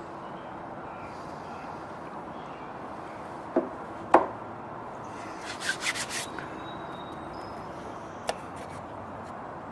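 Metal compressor parts and hand tools being handled during disassembly: two sharp knocks, then a quick run of light metallic clicks and rattles, and a single click near the end, over a steady mechanical-room hum.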